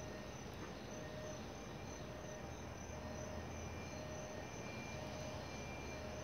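Insects chirping in a steady repeating pattern over a low, steady hum from an Amtrak passenger train standing at the platform.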